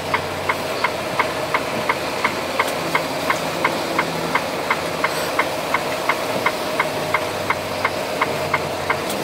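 Semi truck's diesel engine running at idle, heard from inside the cab, with a steady clicking about three times a second over it.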